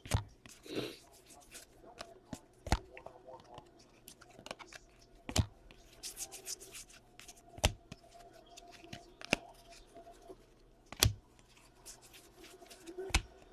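Trading card packs being torn open and the cards handled by hand: crinkling and rustling wrappers, with a sharp tap of a card or pack set down on the table about every two seconds.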